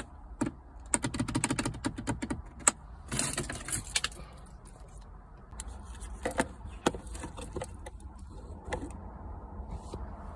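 Clicks and a jangle of keys inside a 2022 VW Arteon's cabin as the keyless start/stop button is tried, with a rapid run of clicks about a second in and scattered single clicks after. No engine cranks, because the button's cable has come unplugged.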